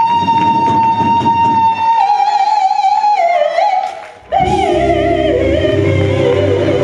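Amplified gospel singing: a woman's voice holds one long high note, then slides down through wavering runs with vibrato. The sound drops out briefly about four seconds in, then returns with lower held notes over a steady low accompaniment.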